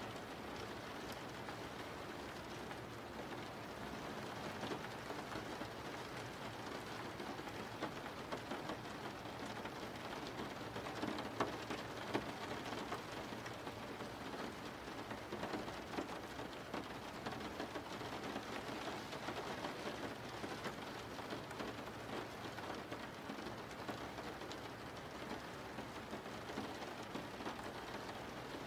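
Steady rain falling, with scattered drops ticking on a surface; a couple of louder drops land near the middle.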